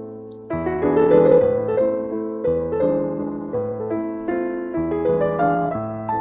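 Background piano music: soft sustained chords and melody notes, a new phrase starting about half a second in.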